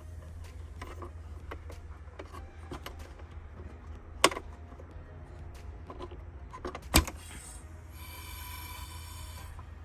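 Plastic parts of the stock air intake being squeezed, rubbed and pulled loose by hand, with light clicks throughout and two sharp snaps about four and seven seconds in, then a steady high squeak near the end.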